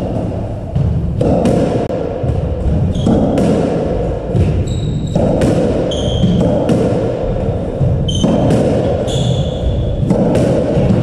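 Squash rally: the ball cracking off rackets and walls at irregular intervals, with short high squeaks of shoes on the wooden court floor.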